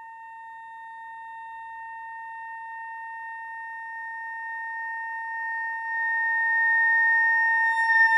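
Ondes Martenot holding one high, nearly pure note that swells slowly and steadily louder, with a further rise near the end.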